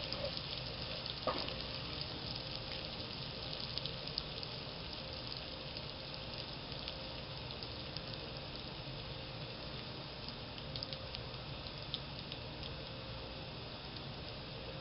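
Oil sizzling steadily in a pot as chopped pieces fry in it, with scattered small crackles and a light knock about a second in.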